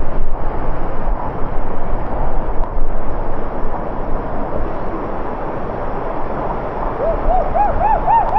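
Waterfall rushing steadily. Near the end a bird gives a quick series of about six short arched notes, each pitched a little higher than the last.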